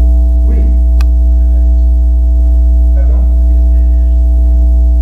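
Loud steady electrical hum in the sound system, a deep drone with several steady higher tones above it. Faint brief voice sounds about half a second in and around three seconds, and a single click about a second in.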